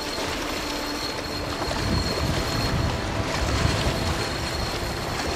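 Wind rumbling over the microphone, with small lake waves lapping and splashing against shoreline rocks.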